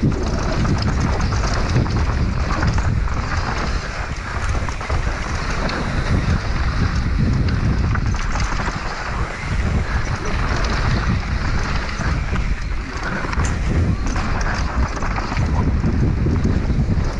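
Wind buffeting the microphone of a downhill mountain bike's helmet camera at speed, over the rumble of knobby tyres on a dirt trail and the bike rattling across bumps.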